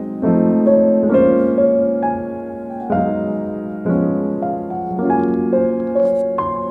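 Background piano music: slow, gentle notes and chords struck about once a second and left to ring.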